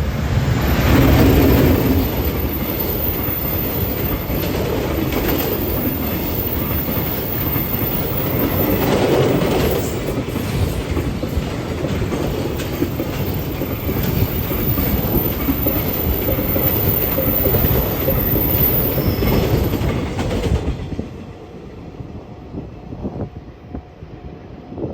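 Long freight train's wagons rolling past at speed, wheels clattering over the rail joints, with some wheel squeal. The noise stops suddenly about 21 seconds in as the end of the train goes by.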